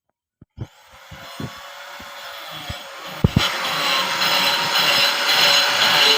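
Power tool running on wood, a steady whirring, cutting noise that builds up and gets louder from about three seconds in, with a couple of knocks just before.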